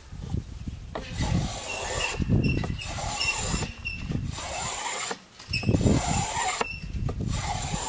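Hand plane shaving the edge of a new wooden chair slat in a series of rasping strokes, roughly one a second, rounding over the edge with passes at different angles.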